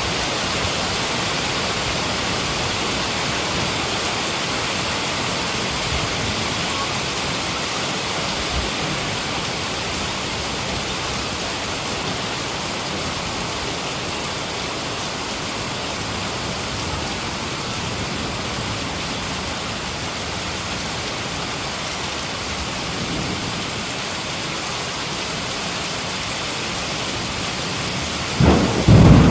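Heavy rain falling in a steady hiss, with a peal of thunder rumbling in near the end.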